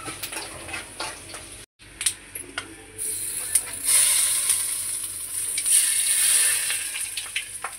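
A tempering of curry leaves and spices sizzling in hot oil in a metal kadai. The hiss sets in about three seconds in and eases off near the end, after a few clinks of utensil on pan.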